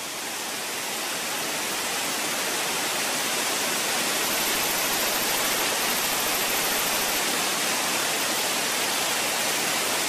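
Steady rushing roar of a tall waterfall's falling water, swelling a little over the first couple of seconds and then holding steady.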